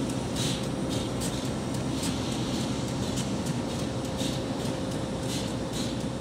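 Three EMD GP11 diesel locomotives sitting at rest with their engines idling: a steady low rumble with a constant hum through it.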